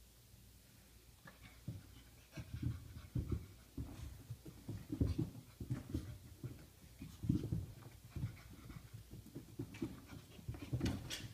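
A Samoyed puppy and a Chihuahua panting and scuffling together, with irregular thumps and clicks starting about a second and a half in.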